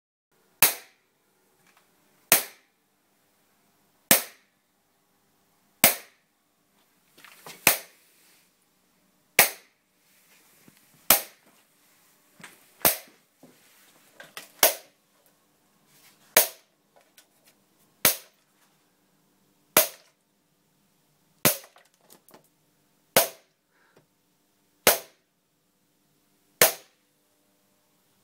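High-voltage capacitor bank discharging through a spark gap into water in a plastic cup (electrohydraulic shock), giving sharp cracks like cap-gun shots. About sixteen evenly spaced cracks, roughly one every 1.7 seconds.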